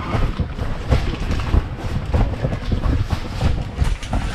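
Wind buffeting a body-worn GoPro's microphone, a loud, gusty rumble broken by frequent irregular thumps.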